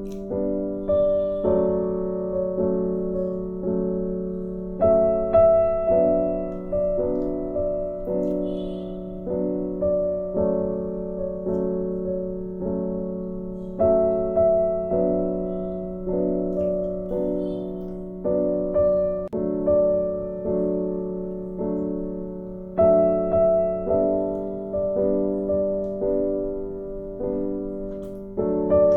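Background piano music: a slow, gentle melody of struck notes, each one fading before the next.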